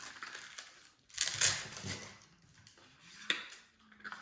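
Packaging rustling and crinkling as parts of the model are handled, with a sharp knock a little after three seconds in.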